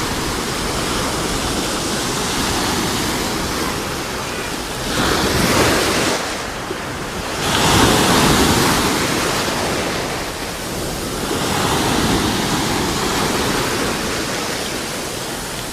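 Sea waves breaking and washing ashore in a steady rushing wash, with louder surges about five, eight and twelve seconds in.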